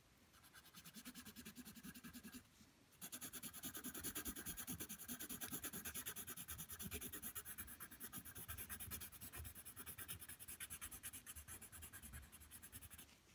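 Pencil scribbling rapidly back and forth on paper, shading in a dark edge: a faint, even scratching of short quick strokes, with a brief pause a little over two seconds in.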